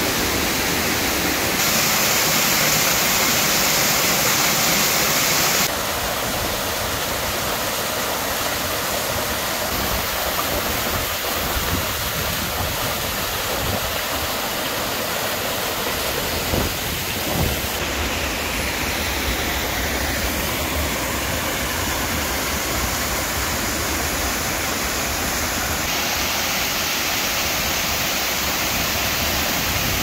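Mountain stream waterfalls pouring over boulders into a pool: a steady rush of falling water. Its tone and loudness change abruptly a few times.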